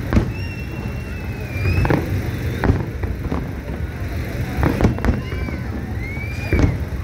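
Aerial fireworks bursting, with a string of sharp bangs at irregular intervals. Between the bangs come whistling shells, their thin whistles curving up and down in pitch.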